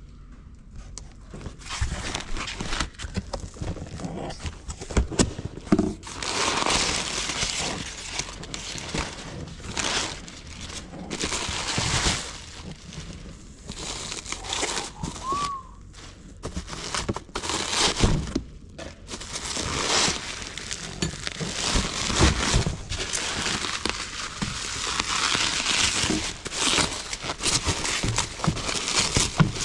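Cardboard box and bubble wrap being handled by hand: irregular crinkling, rustling and crackling of plastic wrap and cardboard, with scattered knocks.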